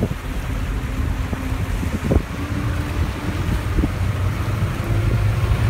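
Motorboat under way at towing speed: a steady low engine rumble mixed with the rush of the churning wake, with wind buffeting the microphone. The rumble grows a little stronger toward the end.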